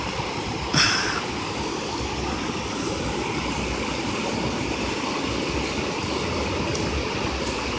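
Steady rushing of river water flowing over a low-water bridge crossing, with an uneven low rumble underneath and a brief sharper sound about a second in.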